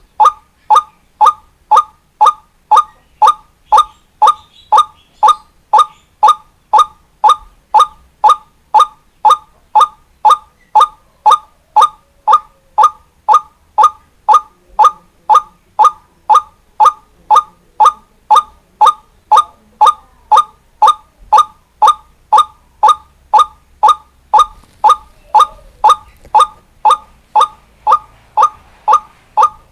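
White-breasted waterhen (ruak-ruak) calling: one short, hooked note repeated evenly, about twice a second, in a long monotonous series.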